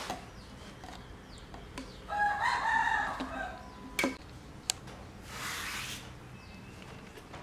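A rooster crowing once, a drawn-out call of about a second and a half, followed by a sharp click and a brief rustle.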